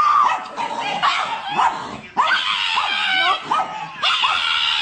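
Pug making a run of short, high-pitched whining and yelping calls that bend up and down in pitch, with a brief pause about two seconds in.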